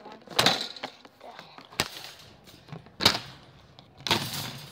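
Several sharp knocks and rattles, about four at irregular intervals, as a phone is handled in the child seat of a metal shopping cart and its plastic seat flap and seatbelt are fiddled with.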